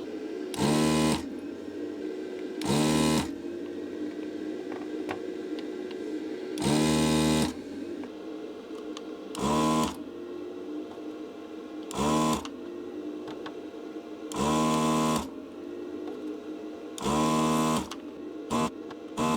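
Desoldering station's vacuum pump buzzing in repeated short bursts, each a half second to a second long, with a few quicker ones near the end, as solder is sucked off the pins of a chip on a circuit board. A steady hum lies underneath.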